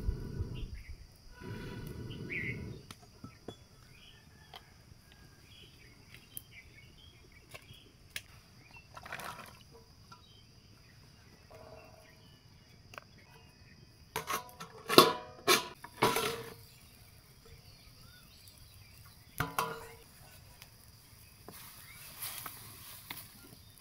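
Blowing through a pipe into the wood fire of a clay stove: two low rushing puffs of air in the first three seconds. A little past halfway comes a run of sharp clattering knocks of cooking utensils against the clay pot, another about two-thirds of the way in, and a faint hiss of vegetables cooking near the end.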